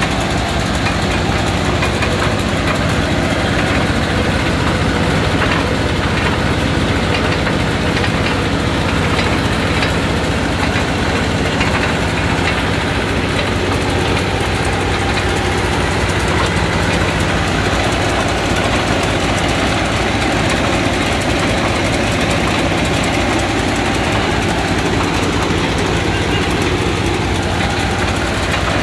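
Crawler-mounted water well drilling rig at work, its engine running steadily and loudly with a continuous mechanical drone and no let-up.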